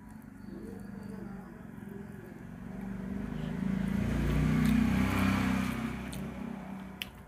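A motor vehicle's engine passing by, swelling to a peak about halfway through and then fading away. A single sharp click near the end.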